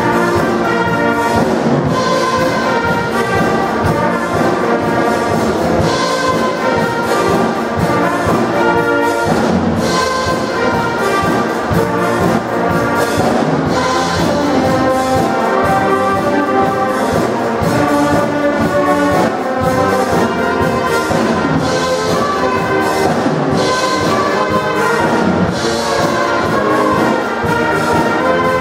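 Youth brass band playing a tune, trumpets, trombones and horns together.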